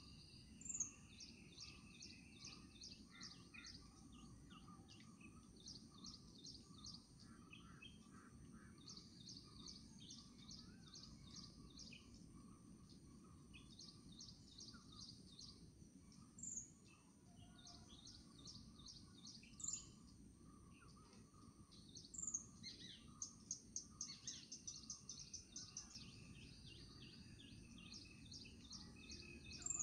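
Faint birdsong: small birds chirping in quick repeated trills, with a few sharp falling calls, over a steady low background rumble.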